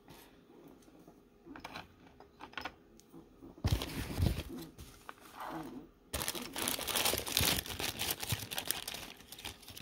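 Paper towel rustling and crinkling as it is handled and laid out on a table, in two long loud stretches from about four seconds in, after a few light clicks.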